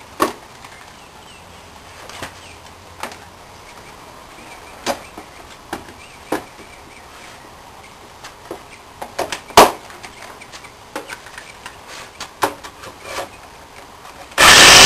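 Scattered clicks and knocks of a plywood board being set and clamped in a pocket-hole jig, the loudest a sharp knock about halfway through. Near the end a corded electric drill starts up at full speed in the jig's drill guide.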